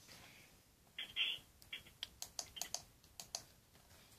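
Computer keyboard keys being pressed: a quick, irregular run of light clicks starting about a second in.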